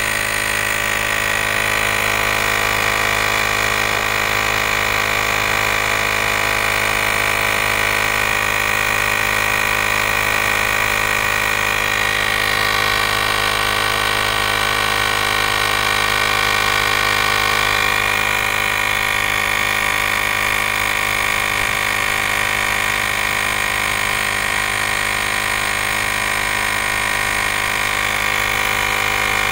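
Kepeak portable cordless tire inflator's electric air compressor running steadily, pumping up a car tire through its hose.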